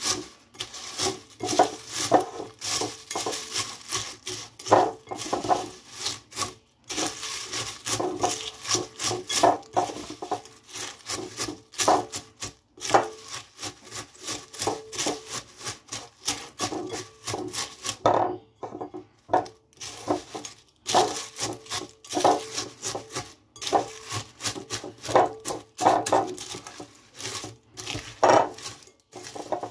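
Silicone spatula stirring cornflakes coated in melted chocolate in a glass bowl: repeated rustling, scraping strokes of the flakes against the glass, with a brief pause about two-thirds of the way through.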